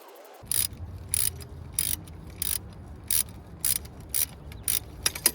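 Hand ratchet wrench worked back and forth, giving a short burst of clicks on each return stroke, about nine in a steady rhythm roughly twice a second.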